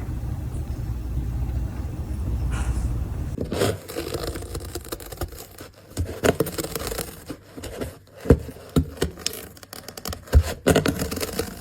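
A steady low rumble. About three and a half seconds in, it gives way to scraping and rustling with a few sharp knocks.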